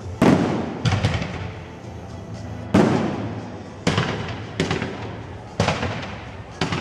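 Aerial fireworks shells bursting: about seven sharp bangs, irregularly spaced, each trailing off in a long echoing rumble.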